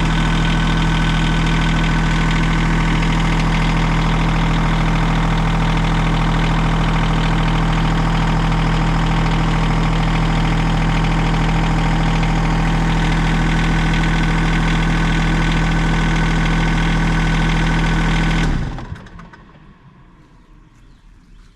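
Mini excavator engine running at a steady speed, then shut off about three-quarters of the way through, cutting to a low background.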